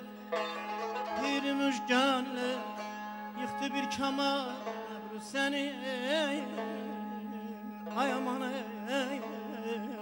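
Azerbaijani mugham: a male singer sings a melismatic line full of quick warbling trills, over tar and kamancha holding a steady drone beneath him.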